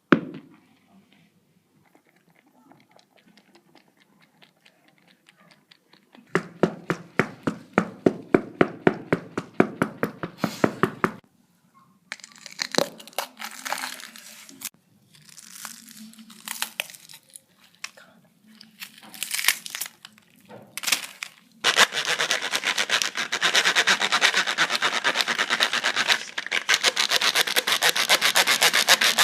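A run of hand-made foley effects. It opens with faint ticking, then a fast run of sharp clicks at about five a second. Scattered rustling and scraping noises follow, and from about two-thirds of the way in a dense, steady crackling like crumpling or tearing material.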